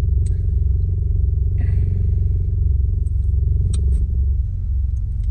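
Road noise inside a moving car's cabin: a steady low rumble, with a few light clicks and a brief rustle about two seconds in.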